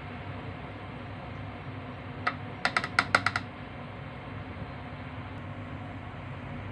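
Plastic measuring spoon tapped against the rim of a ceramic bowl to knock off cornstarch: one tap, then a quick run of about six light clicks within a second, over a steady background hum.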